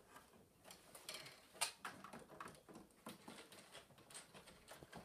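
Faint, irregular clicks and taps of hands handling the plastic casing and terminal cover of a wall-mounted heat pump indoor unit, with one sharper click about a second and a half in.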